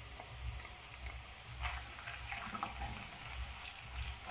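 Chopped onions frying in hot oil in a wok, a soft steady sizzle, as ginger-garlic paste is added to them, with a few short brief sounds about halfway through.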